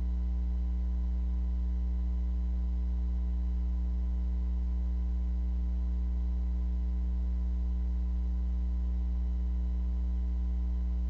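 Steady low electrical hum with a faint buzz and hiss, unchanging throughout; no sound of the paint roller can be made out.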